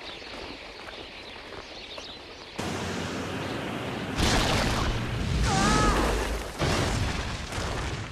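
Cartoon battle sound effects: a sudden loud rushing blast about two and a half seconds in, then heavy booms, with a short wavering cry in the middle.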